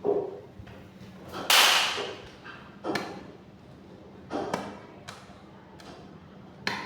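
Irregular knocks and blows as a ceiling fan is broken apart, about six in all, with one louder crashing hit about one and a half seconds in. A faint steady hum runs underneath.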